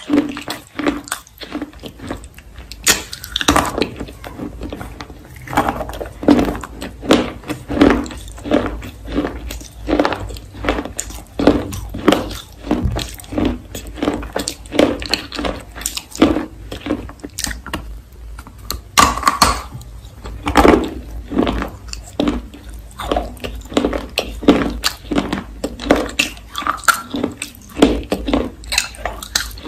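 A mouthful of clay roll being bitten and chewed, an uneven run of sharp crunches coming a few times a second.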